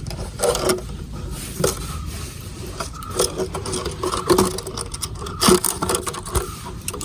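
Plastic bottle fish trap being handled while thin string is tied around it: irregular scrapes and taps.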